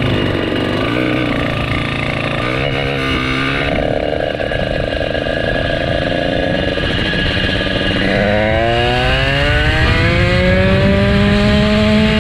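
RDM Piaggio 79cc engine on a motorized bicycle running under way, with its pitch rising steadily from about two-thirds of the way in as it speeds up.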